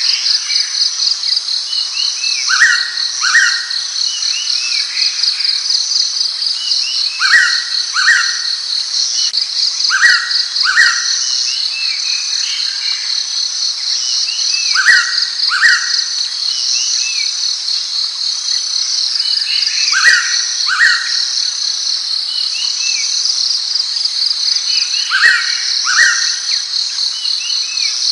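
Blue-winged pitta calling a loud two-note whistle, repeated six times at intervals of about five seconds, over a steady high-pitched insect trill.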